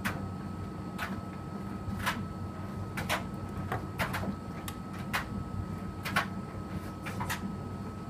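Electrolux front-loading washing machine turning its drum during a cotton wash: a steady motor hum with a thin high whine. Irregular sharp clicks and knocks come from the wet laundry tumbling in the drum.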